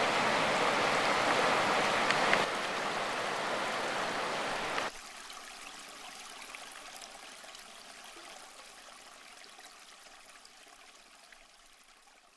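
Floodwater of the Shilabati River rushing over rocky rapids as a steady, even rush. It steps down slightly about two and a half seconds in, drops sharply about five seconds in, and fades away.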